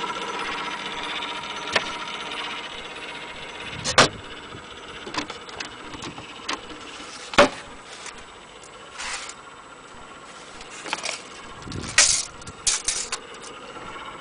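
Wind-up gramophone's spring motor running with a steady mechanical whir from its gears and governor, dying down after about three seconds. Then scattered sharp clicks and knocks from handling the wooden case.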